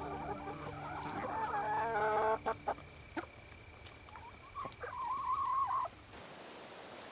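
A flock of hens clucking, several overlapping calls at once for the first couple of seconds, then a single drawn-out call around five seconds in. The calls stop about six seconds in, leaving a faint steady outdoor hiss.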